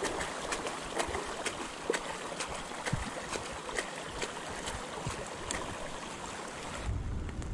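Bicycle tyres pushing through shallow floodwater: a steady rushing, sloshing splash of water, dotted with many small sharp ticks. Near the end it gives way to a lower rumbling rush.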